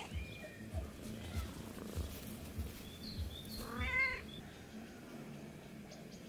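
Grey cat meowing once, clearly, about four seconds in. Before it, soft low thuds about twice a second as the cat bounds through grass close by, with faint bird chirps around the meow.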